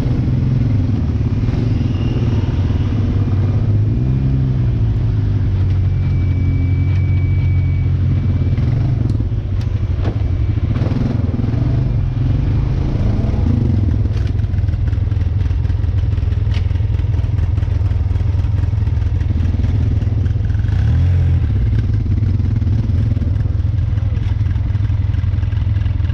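An off-road vehicle's engine running steadily while driving, with scattered knocks and clatter.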